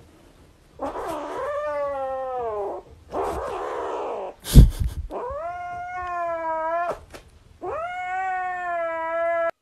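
Kitten yowling in long, drawn-out protest cries of about two seconds each while it guards its plush toy from a hand reaching to take it. A sharp thump about midway is the loudest single sound.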